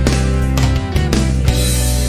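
Background music: a guitar-led rock track with a steady beat.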